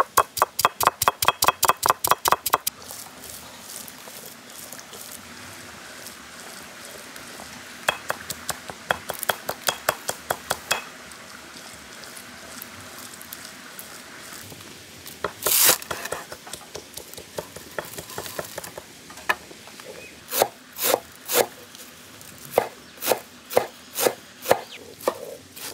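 Knife chopping food on a board in quick runs of strokes, about six a second at first, then a slower, more spaced-out chopping near the end. A brief louder rushing noise comes a little past the middle.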